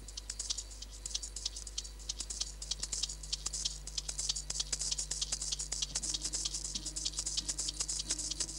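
Craft knife cutting along a sheet of paper: a rapid run of short, dry scratching strokes, several a second.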